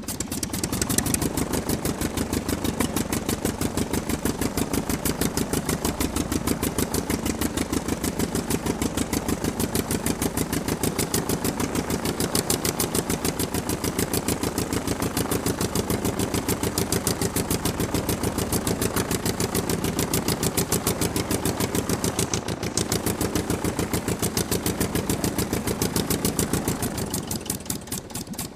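Aircraft piston engine running steadily with a fast, even firing beat, being run a little hotter before shutdown. It eases off somewhat near the end.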